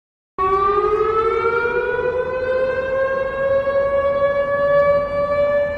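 Civil defence siren starting about half a second in, its tone rising slowly in pitch and then held steady.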